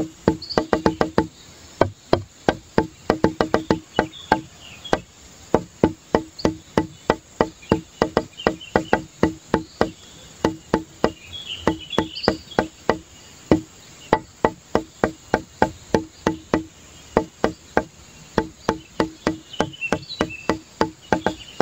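Background music: a steady rhythm of quick, pitched wood-block-like taps, about four to five a second, with faint high chirps here and there.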